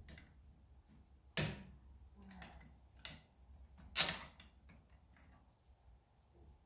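Sharp metallic clinks of a hand tool prying and knocking against the engine of a Ford 7610 tractor during disassembly. The two loudest come about a second and a half in and about four seconds in, with fainter taps between.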